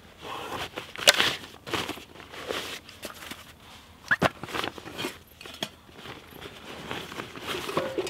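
Rucksack fabric rustling and gear being handled while someone rummages inside an open backpack, in irregular scrapes and rustles with a few sharp clicks, the loudest about a second in and a pair of clicks about four seconds in.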